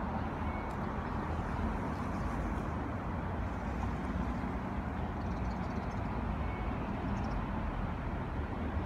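Steady low rumble of outdoor vehicle noise, with a few faint high chirps near the middle.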